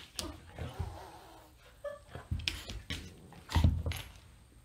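A dog pawing and nosing at a fleece-covered pet bed: a string of short thumps and scuffs, with the loudest, heaviest thump about three and a half seconds in.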